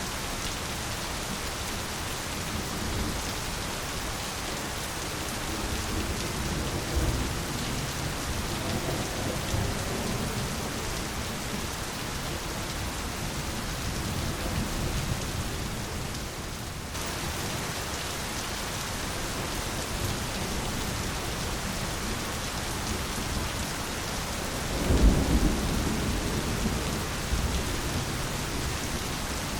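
Steady heavy rain hissing on leaves and surfaces, with low rolls of thunder: a couple of soft rumbles several seconds in and a louder rumble late on.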